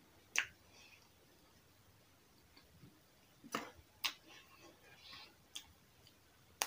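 Metal spoon clinking against an enamel bowl while scooping potato curry, five sharp clinks spread out with the loudest about half a second in, and softer eating and chewing sounds between.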